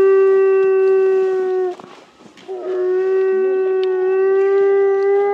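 Timber wolf howling: one long, level-pitched howl, a short break for breath about two seconds in, then a second long howl on the same note.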